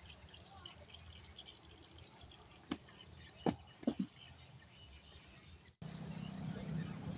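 Outdoor ambience of small birds chirping in short falling notes over a steady high insect drone, with a few sharp clicks in the middle. Near the end the sound cuts out abruptly and comes back with a louder low hum.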